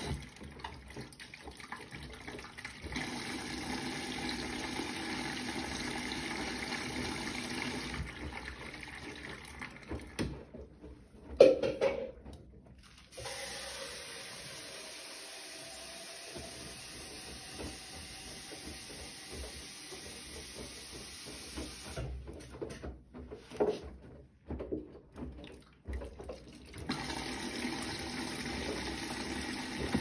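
Bosch front-loading washing machine taking in water and tumbling a wet load: water running into the drum and sloshing around the laundry. The sound changes abruptly several times, with one brief loud bump about eleven seconds in.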